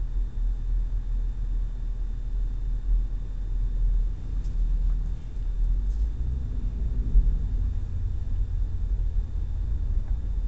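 Low rumble of a car driving slowly, heard from inside the cabin, growing a little stronger about six seconds in as the car picks up speed.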